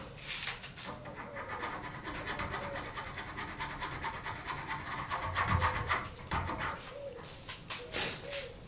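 Needle file rasping back and forth inside a drilled hole in a knife-handle block held in a vise, clearing the slot for a hidden tang. It goes as a steady run of short strokes.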